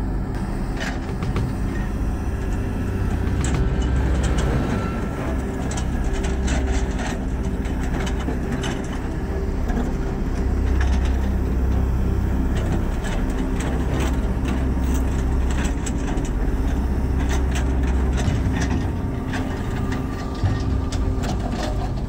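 Tata Hitachi crawler excavator's diesel engine running steadily under load, with scattered knocks and clatter of broken concrete and stone as the bucket works the rubble of an old culvert. The low engine rumble swells in the middle stretch.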